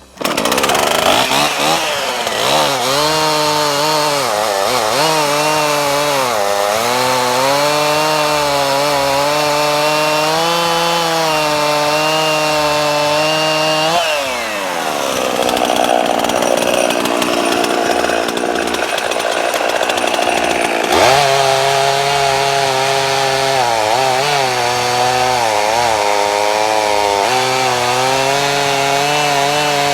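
Two-stroke chainsaw cutting wood on a chain freshly sharpened with a Granberg File-N-Joint, the engine pitch dipping and recovering under load. About 14 seconds in the revs fall away for several seconds, then climb back up to cut again.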